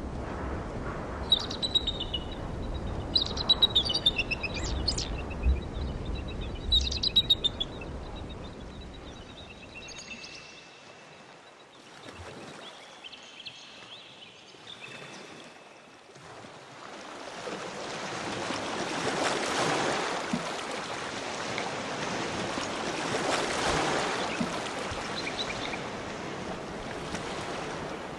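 Outdoor nature ambience: birds chirping in short bursts over a low rumble, then a rushing noise of water that swells and fades twice.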